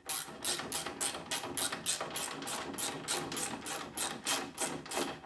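Hand ratchet clicking in quick, even strokes, about five a second, as a nut is run down on a new rear suspension link-arm bolt at the hub knuckle.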